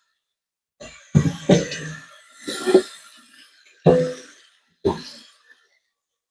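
A person coughing about five times in a short fit, each cough sharp at the start and quickly fading.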